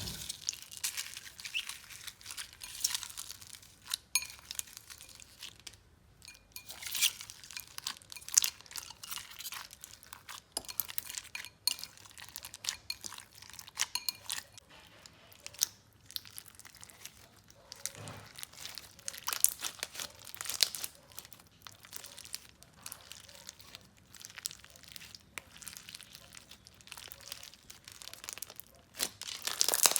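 Slime being squeezed, stretched and poked by hand, giving many small irregular crackles and pops.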